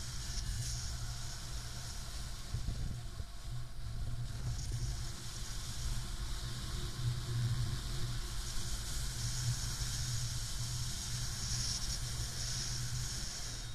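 Airflow of paraglider flight buffeting the camera microphone: a steady low wind rumble with a hiss that swells and fades several times.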